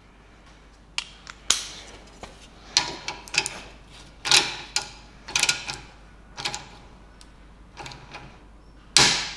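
A 3D-printed plastic ratchet wrench turning a socket on a nut clamped in a vise: a series of irregular clicks and clacks from the ratchet and socket as the handle is worked back and forth, with a louder clack near the end.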